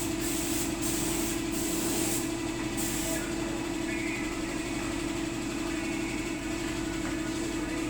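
Spray-finishing rig applying varnish: a compressor runs steadily, and a spray gun hisses in short repeated bursts over the first three seconds.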